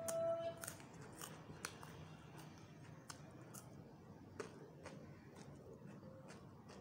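Close-up chewing of crispy prawn chips: sharp crunches every half second or so at first, then fewer and further apart, with a short steady tone at the very start.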